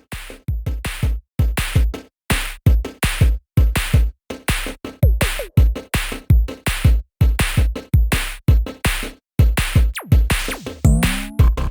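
Electronic music with a fast drum-machine beat: deep bass-drum thumps and short hits repeating steadily.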